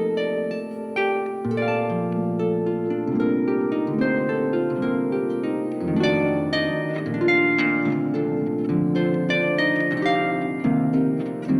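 Solo harp playing: plucked notes ringing into one another, over a low bass note that changes every second or two.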